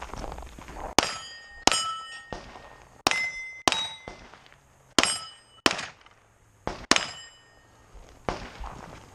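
Seven pistol shots at steel plates, mostly in quick pairs about two-thirds of a second apart, each shot followed by the high ringing clang of a steel plate hit.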